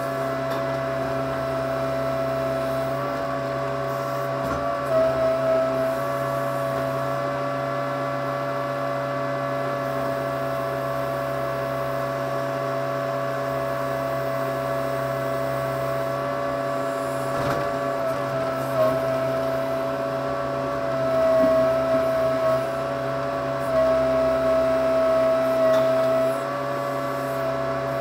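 Case 580C backhoe's engine and hydraulics running steadily, heard from the operator's seat, as the boom and bucket are worked. The sound swells briefly a few times under load.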